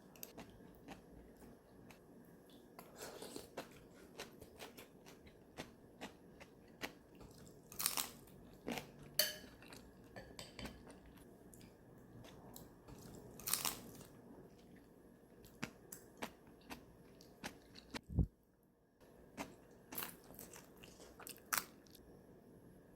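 A person chewing and biting crunchy food, with irregular crunches and small clicks, and a dull thump about three quarters of the way through.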